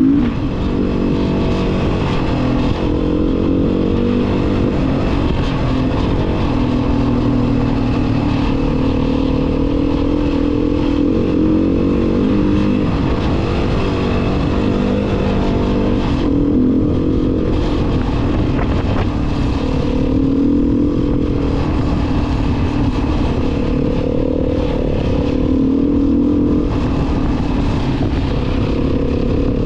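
A vehicle engine running steadily, its pitch drifting slightly up and down, with a steady rushing noise over it.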